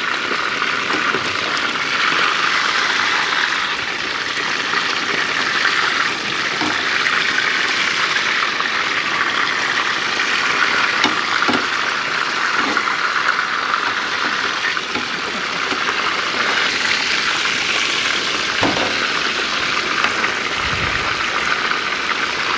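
Floured fish shallow-frying in hot oil in a skillet: a steady sizzle, with a few short taps and scrapes of a spatula as the pieces are turned.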